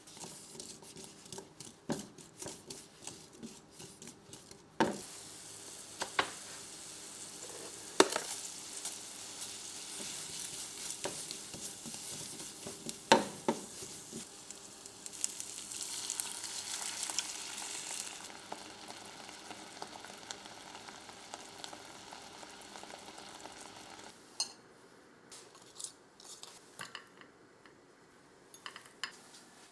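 Food sizzling in a frying pan, with a utensil stirring it and knocking against the pan. The sizzling starts about five seconds in and stops well before the end, leaving a few scattered taps.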